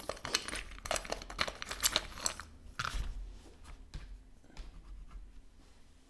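Dry scratchy crackling and clicking from drawing materials being handled on a desk, dense for about two and a half seconds, then a single knock near three seconds and fainter ticks after.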